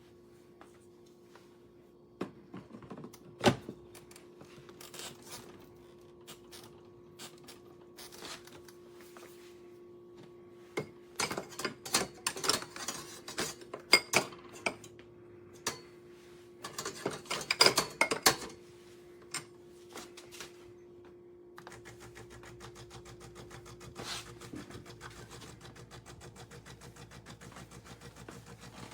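Clicking and clattering of hard parts of a De'Longhi La Specialista espresso machine being handled, with two busy bursts of clatter. About two-thirds of the way in, the machine starts a steady, fast-pulsing mechanical hum.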